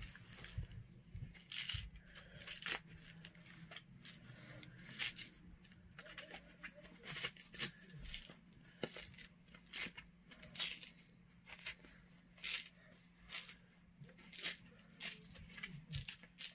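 Hands handling a fursuit body's faux fur and zipper: irregular short scratchy rustles and rasps, one or two a second.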